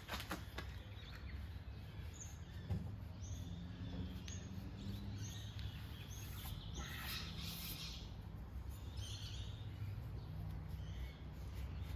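Faint outdoor background: a steady low rumble with scattered short, high bird chirps and a few light clicks.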